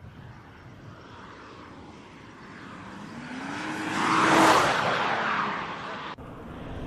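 The 2017 Audi S5 Coupe's turbocharged 3.0-litre V6 accelerating, its engine note rising in pitch and growing louder to a peak about four and a half seconds in, then easing off. The sound cuts off abruptly near the end.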